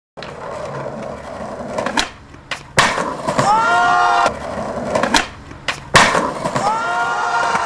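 Skateboard wheels rolling on smooth concrete, with a whir that bends up and down in pitch as the board passes close. Several sharp clacks from the board are heard along the way.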